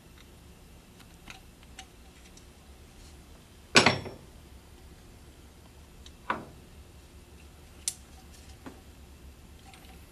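Hand handling of a plastic pressure-regulator filter bowl as its O-ring is taken off: a few light clicks and knocks. The loudest knock comes a little under four seconds in, another just after six seconds, and a sharp click near eight seconds.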